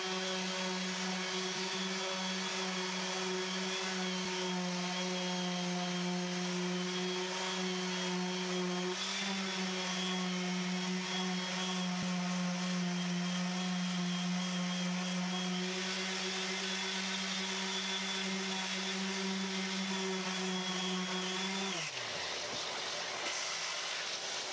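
Makita random orbital sander with 240-grit paper running steadily, sanding back dyed figured maple. About 22 seconds in it is switched off and winds down.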